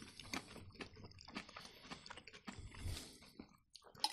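Faint close-up chewing and soft crunching of marinated zucchini slices, with many small irregular mouth clicks.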